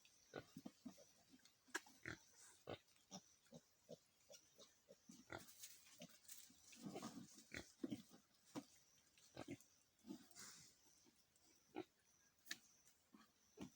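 Pigs grunting in short, irregular grunts, mixed with small clicks, busiest around the middle.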